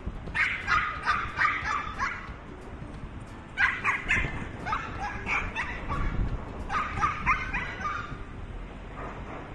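Shih Tzu yapping in quick, high-pitched barks, in three runs of several barks each, a second or two apart.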